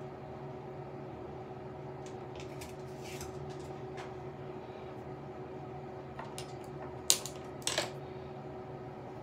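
Small hard makeup containers and tools being handled and set down on a tabletop: scattered light clicks, then two sharp clacks in quick succession about seven seconds in, the loudest sounds here. A steady low hum continues underneath.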